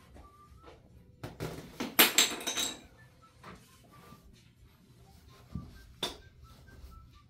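Rustling and clattering of things being handled, loudest for about two seconds starting a second in, then two short sharp knocks near the six-second mark.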